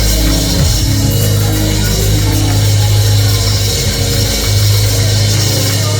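Live church band music with drums, long held bass notes and sustained chords.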